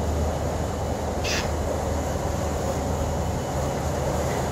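Steady low drone of the river cruise ship's engines, with one brief hiss about a second in.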